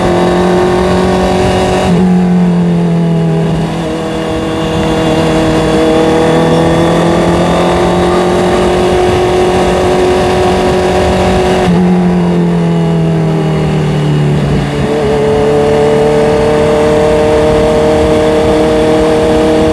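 Honda CBR650R's inline-four engine pulling under way, its note dropping at a gear change about 2 seconds in and again about 12 seconds in, then climbing slowly as the bike picks up speed.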